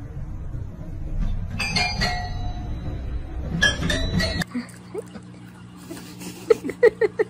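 A cat pawing the keys of a toy piano, sounding two short clusters of tinkly notes. Then rapid rhythmic lapping from a small bowl, about five or six laps a second, loudest near the end.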